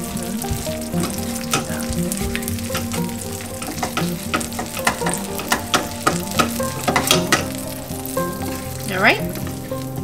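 Melted cheese crust sizzling and crackling in a nonstick skillet on a burner just turned off, as a spatula scrapes underneath to loosen it. The loudest scrape comes about nine seconds in.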